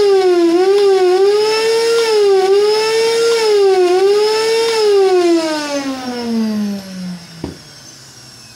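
Kärcher NT 3000 wet-and-dry vacuum cleaner's motor running with a loud, high whine whose pitch wavers up and down, then switched off about five seconds in and winding down in a long falling whine, with a click near the end. The whine is the very loud motor noise the unit came in for, which the technician puts down to the motor together with its seals.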